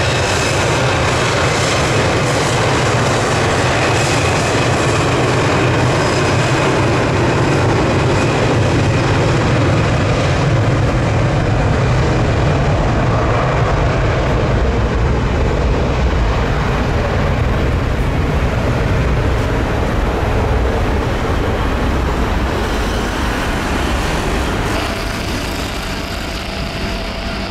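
Four-engine Airbus A340 on its takeoff roll, its jet engines at takeoff thrust: a loud, steady rumble that slowly loses its higher tones and fades a little as the aircraft moves away down the runway.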